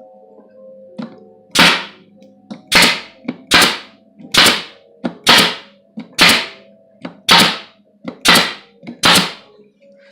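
Arrow PT50 staple gun firing staples: nine sharp shots about a second apart, each trailing off briefly.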